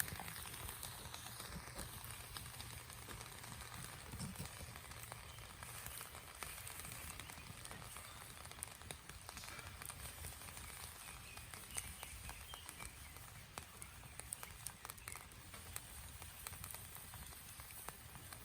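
Faint, irregular crackling and sizzling from food steam-cooking in a pan over a fire.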